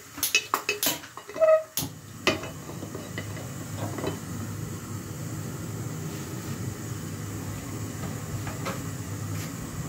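A few sharp metallic clinks and knocks from an aluminium pressure cooker pot on a gas stove, one with a brief ring, in the first two seconds. After that comes the steady low rumble of the lit gas burner.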